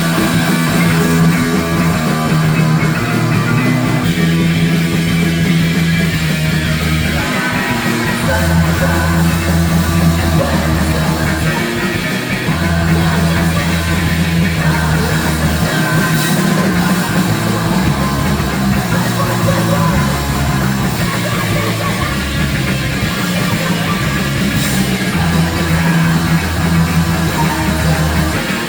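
Loud heavy rock band playing live: distorted electric guitar over a bass line that moves between low notes in a repeating riff, with drums.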